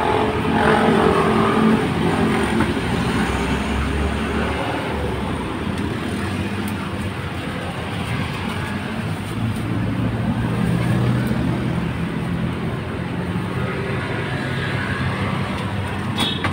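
Steady road traffic passing close by: motorbike and car engines with tyre noise, one engine note swelling louder about ten seconds in.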